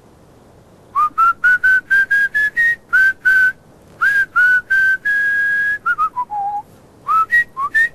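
A man whistling a tune by mouth. It starts about a second in as a run of short notes, each sliding up into its pitch, then one longer held note about halfway through, a few lower notes, and more short quick notes near the end.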